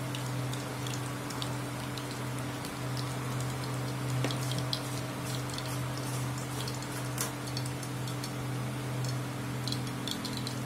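Hot oil crackling and sizzling in an iron kadai as ivy gourd pieces deep-fry and are scooped out with a wire strainer, with scattered short pops over a steady low hum.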